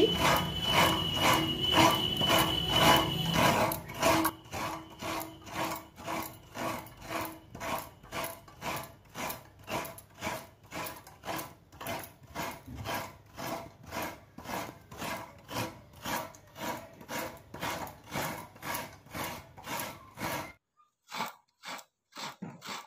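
A fresh coconut half being grated by hand on a serrated coconut scraper over a steel bowl: steady rasping strokes, about two to three a second, louder for the first few seconds. The strokes stop abruptly about twenty seconds in, and a few faint strokes follow.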